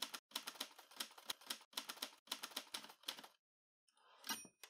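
Typewriter keystrokes: rapid clacking for about three seconds, then a pause and a short bell ding a little before the end.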